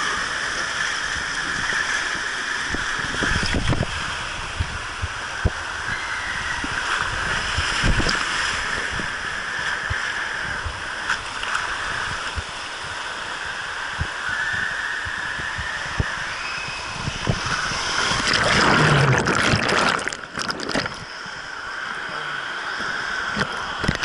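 Water rushing and sloshing down a tube water slide, heard close up from the rider's camera, with many short knocks of the body and camera against the slide. Late on it swells into a loud, splashy burst as the rider reaches the splash pool, then settles into churning water.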